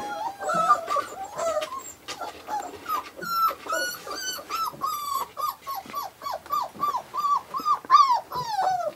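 Five-week-old Australian Shepherd puppy whimpering in a fast run of short, high cries, each falling in pitch, about three a second.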